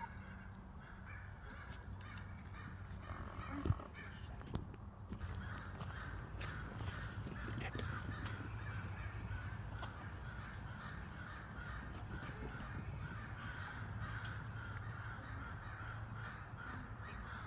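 American crows cawing over and over, several birds calling almost without a break for most of the stretch: alarm and mobbing calls, which the owner takes as the sign of a hawk close by. A single short knock about four seconds in.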